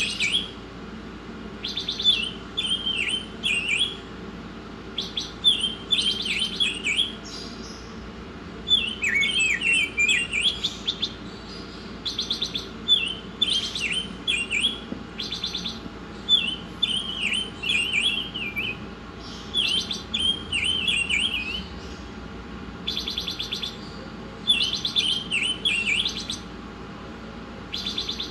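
A songbird singing the same short phrase over and over, about every two seconds: a quick rattle of chips, then a high warbling run of notes that dip and rise. A steady low hum lies underneath.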